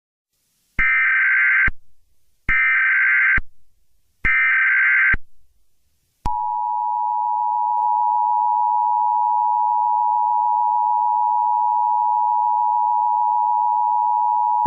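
Emergency Alert System alert tones: three short bursts of the SAME digital header's screeching data, then the steady two-tone attention signal held for about eight seconds.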